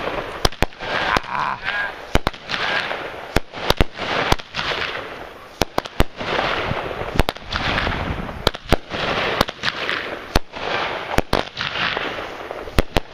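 A 16-shot consumer firework cake firing: many sharp bangs at uneven intervals, with swells of hiss between them.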